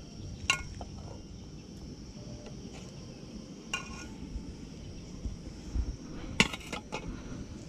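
Metal ladle clinking against a metal cooking pot while soup is stirred: a sharp clink about half a second in, another near four seconds, and a quick cluster of clinks around six and a half seconds. A steady high insect drone runs underneath.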